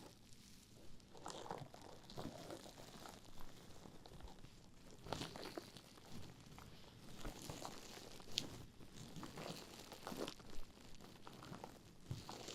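Mesh bath pouf rubbed and squeezed against a microphone as an ASMR trigger: soft, irregular crinkly scratching strokes, with a few sharper scratches now and then.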